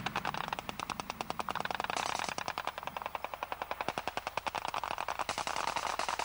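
Automatic gunfire from a machine gun, a fast, even rattle of shots at roughly ten a second.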